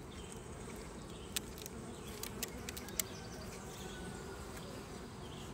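Honeybee colony buzzing steadily as a low hum from the opened hive, with a few faint sharp clicks scattered through.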